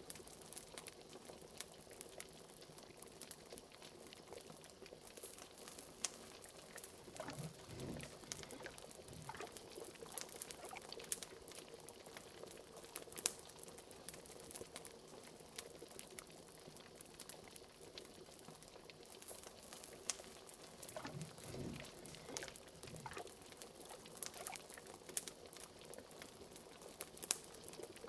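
Liquid bubbling in a pot on a fire, with many small, sharp wood-fire crackles and a couple of deeper blubs, about 7 and 21 seconds in.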